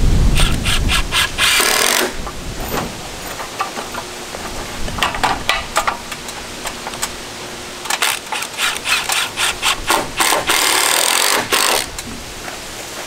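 Hand saw cutting into a rough-cut wooden rafter in bursts of quick strokes, with pauses between the bursts; the longest run of sawing comes near the end.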